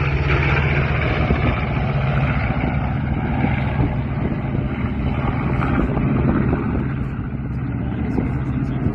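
Aircraft engine running at a steady, even drone.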